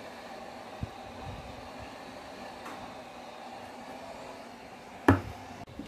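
Handheld heat gun's blower running steadily while it warms a phone's back cover to soften the adhesive. A sharp knock about five seconds in, and a lighter tap near the start.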